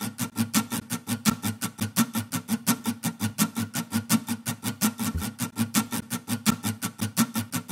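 Instrumental music: a guitar played in fast, even strokes, about five or six a second.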